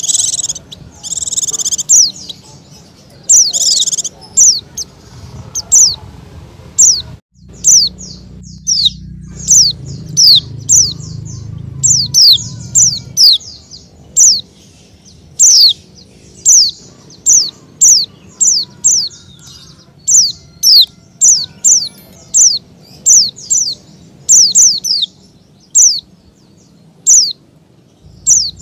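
A bird chirping: short, high chirps that slide downward in pitch, repeated about once or twice a second.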